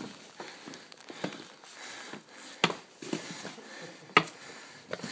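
Footsteps crunching in fresh snow and a snow shovel scraping through it, with two sharp knocks, the louder one about four seconds in.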